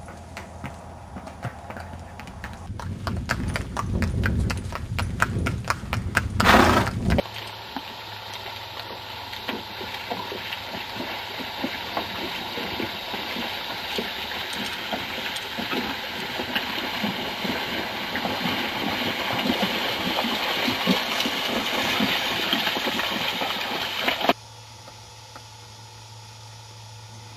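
Horse's hooves striking the ground in a steady repeating rhythm, with one loud thump about six seconds in. The sound cuts off abruptly near the end.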